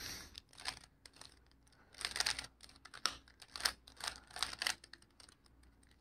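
Layers of a plastic 3x3 Rubik's cube being turned by hand: short runs of quick, light clicks and clacks.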